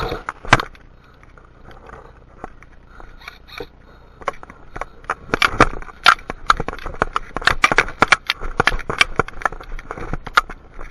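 A quiet stretch, then from about four seconds in a quick, irregular run of sharp clicks and snaps, several a second, that stops shortly before the end.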